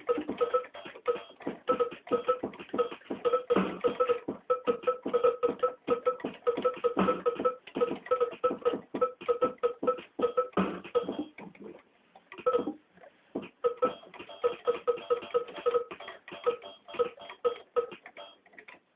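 Experimental electronic keyboard solo, improvised: rapid, clipped notes hammering on a few repeated pitches. The playing breaks off briefly about twelve seconds in, resumes, and stops just before the end.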